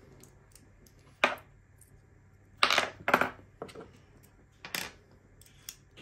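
Small metal lock parts and tools clinking and clattering as they are handled and set down on a wooden workbench: a handful of short, sharp clicks, the loudest a quick cluster about three seconds in.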